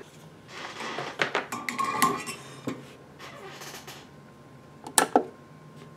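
Cables and plastic connectors clattering and clicking as they are handled and plugged into the front sockets of a Hakko 470 desoldering station. Two sharp clicks about five seconds in, followed by a faint steady tone.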